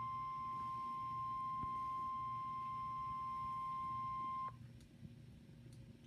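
A NOAA weather alert radio sounds its steady single-pitch warning alarm tone, which signals that a warning message is about to be broadcast. The tone cuts off sharply about four and a half seconds in, leaving a faint hiss from the radio.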